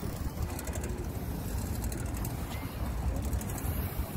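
Wind buffeting a phone's microphone on a moving bicycle: a steady, flickering low rumble.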